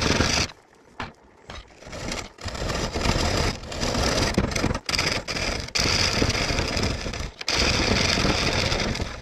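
Gouge cutting the outside of a large pine bowl spinning on a wood lathe, taking shavings off in several passes broken by short pauses, the first about half a second in.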